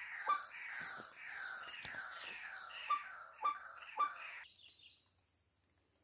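White-breasted waterhen calling, a harsh repeated call about twice a second, each a sharp note followed by a falling sweep. It cuts off abruptly about four and a half seconds in.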